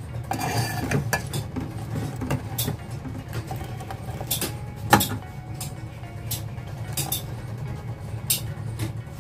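A steel pot of milk tea boiling on a gas burner, with a steady low rumble under it, and a steel ladle clinking against the pot many times as the tea is stirred, scooped up and poured back. The loudest clink comes about five seconds in.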